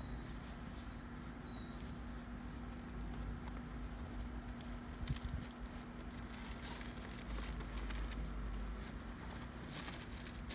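Rustling and crinkling of a lab coat being stuffed into a zippered shoulder bag, with a sharp click about five seconds in and the handling growing busier near the end. A steady low hum runs underneath.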